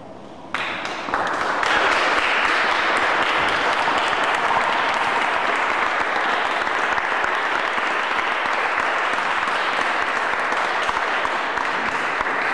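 Audience applauding, starting abruptly about half a second in and growing fuller a moment later, then holding steady.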